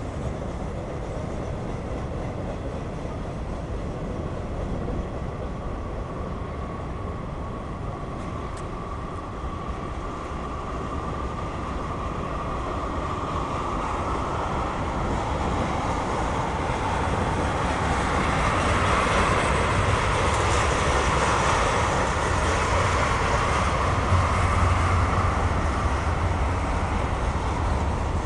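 Freight cars of a passing Norfolk Southern mixed freight (hoppers and a tank car) rolling by, a steady noise of steel wheels on the rails that grows louder about halfway through.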